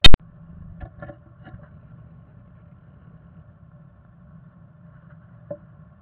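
A single sharp, loud click at the very start, then a few faint taps and scratches inside a wooden nest box as a black-capped chickadee comes in and settles onto its moss nest, with one more small tap near the end.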